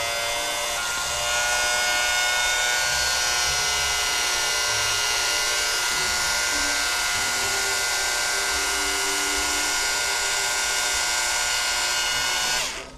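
Small electric transfer pump, primed with rain-barrel water, running after being plugged in: a steady motor whine that gets louder about a second in. It stops shortly before the end.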